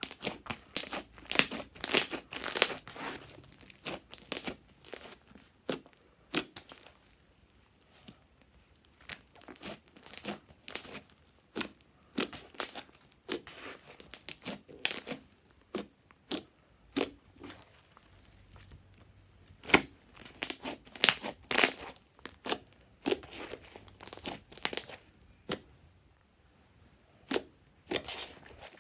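Pink fluffy slime squeezed, pressed and stretched by hand, giving irregular runs of sharp crackling pops and squishes as trapped air is forced out. The sound breaks off briefly a few times between handfuls.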